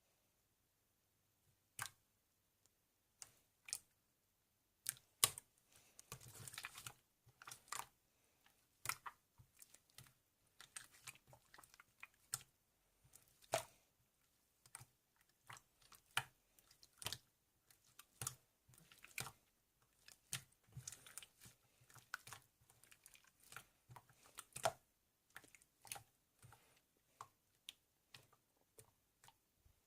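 Irregular small sharp clicks and crackles, close up and quiet, a few bunching into a short crackling run about six seconds in.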